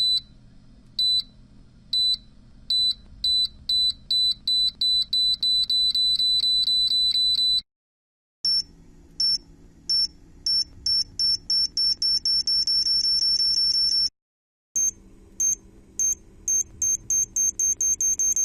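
Electronic bomb-timer beeping in three runs: each starts at about one beep a second and speeds up to rapid beeping, and each new run is higher in pitch than the last, with a brief silence between runs. A faint low hum sits under the beeps.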